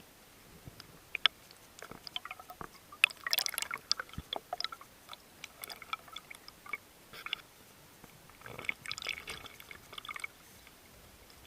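Scattered sharp clicks and short crackling, bubbling bursts heard underwater, the busiest stretches about three seconds and about nine seconds in.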